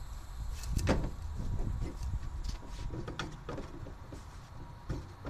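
Knocks and clicks of a steel wheel and tire being handled against the van's hub: a loud knock about a second in, a scatter of lighter clicks and taps in the middle, and another knock near the end.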